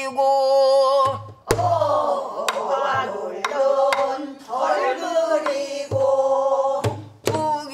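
A pansori singer sings long, wavering held notes, accompanied on a buk barrel drum. The drum gives a few low thumps and sharp wooden knocks.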